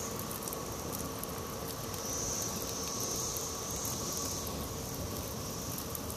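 Scrap lumber burning in a loaded outdoor fireplace: a steady noise from the fire with faint crackles, under a high insect drone that swells a few times near the middle.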